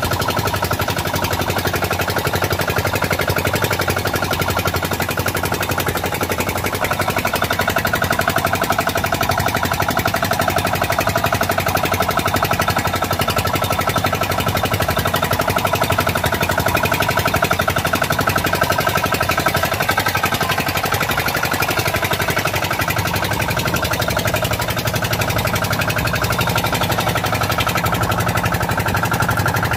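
Small gasoline engine driving a hookah-diving air compressor, running steadily at constant speed with a rapid, even chatter that feeds air down the hose to a diver.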